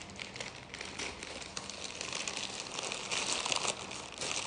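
Plastic packaging crinkling and rustling as a canvas backpack is handled, a little louder about three seconds in.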